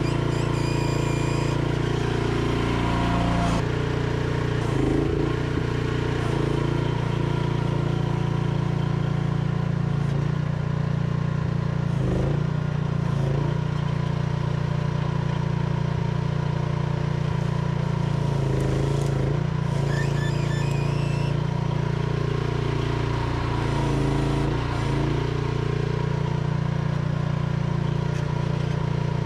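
Small engine of a micro excavator running steadily at working throttle. Its note dips briefly several times as the hydraulics take load while the arm digs.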